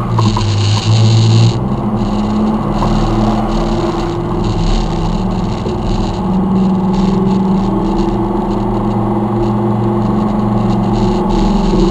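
Four-wheel-drive vehicle's engine running steadily under load as it crawls out of a creek crossing and up a sandy, rocky bank, with a rush of water noise in the first second and a half.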